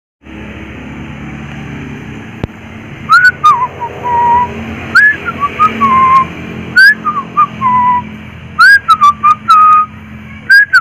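Loud whistled phrases, each sliding up and then dropping to a lower held note, repeated from about three seconds in, over a steady low hum.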